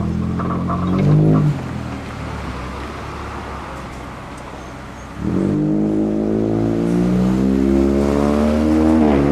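Traction motors and gears of an old Hakone Tozan Railway electric train whining as it pulls away, the pitch rising. The whine fades off at about a second and a half, then comes back louder about five seconds in and climbs steadily, with a small step near the end.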